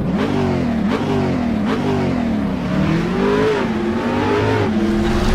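Car engine revving again and again, its pitch rising and falling several times and then holding steadier near the end, as a produced intro sound effect.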